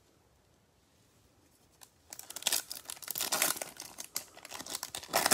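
A Bowman Chrome baseball card pack's wrapper torn open and crinkled by hand. It starts about two seconds in with a dense run of crackling and crinkling.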